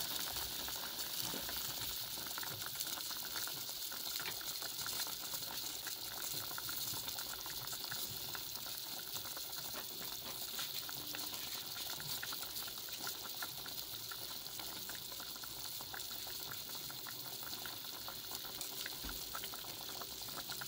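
Chicken leg quarters boiling hard in a stainless steel pot of marinade: steady bubbling hiss with many small pops.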